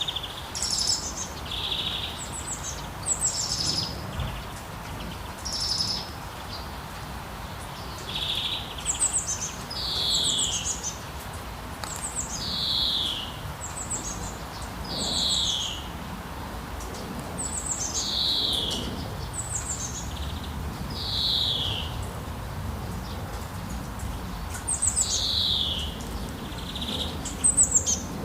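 Songbirds calling, short high chirps that each slide downward in pitch, repeated every two to three seconds, over a faint steady hiss.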